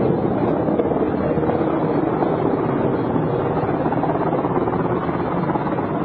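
Military helicopter running close by: a steady, loud wash of rotor and engine noise.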